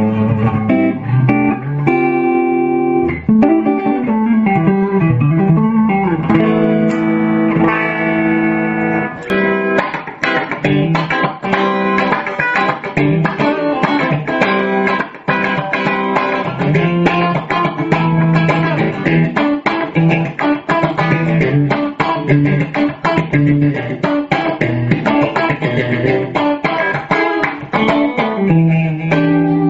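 Bacchus Handmade Series G-Player electric guitar being played: held notes with string bends at first, then a long run of fast single-note picking, settling back onto sustained notes near the end.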